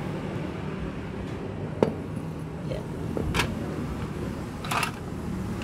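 A metal cylinder head and tools being handled: a sharp click a couple of seconds in, another short knock, and a brief scrape near the end, over a steady low hum.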